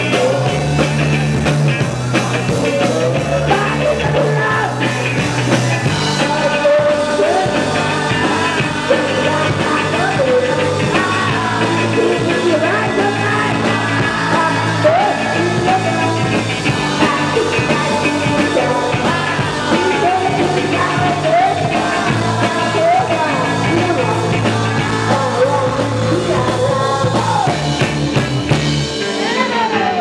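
A rock band playing live: electric guitars and drums with a lead vocal singing over them, continuous and loud.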